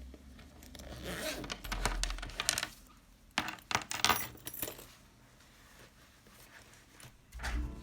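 Light clinks and clatter of small hard objects being handled, in two short bouts.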